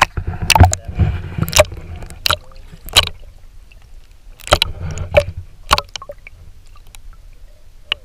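Water splashing and slapping at the side of a small boat as a caught guapote is held and let go in the water: a string of irregular sharp splashes over a low rumble.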